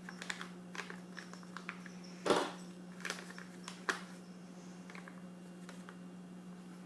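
Scattered light clicks and knocks of kitchen utensils and containers being handled, with one louder knock a little over two seconds in. A steady low hum runs underneath.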